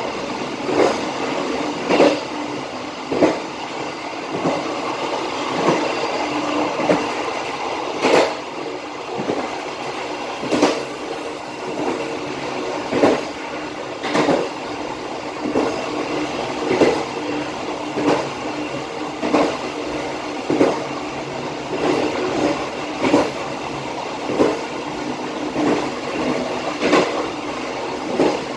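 Passenger train running at speed along the track: a steady rumble of wheels on rail, with a clack from the wheels over a rail joint at an even beat, about once every 1.2 seconds.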